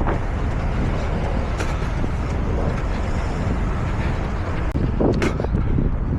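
Steady rumbling wind and movement noise on a jogger's microphone, with a couple of brief knocks, one a little over a second in and one about five seconds in.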